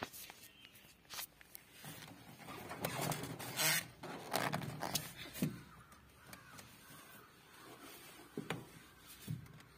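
Hands adjusting a copper refrigerant pipe and its flare-nut joint: scattered light clicks and scrapes, with a few short rustling scrapes in the middle.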